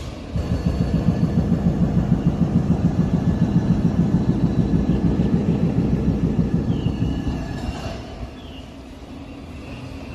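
Hydraulic breaker on a demolition machine hammering rapidly, several blows a second. It fades about eight seconds in.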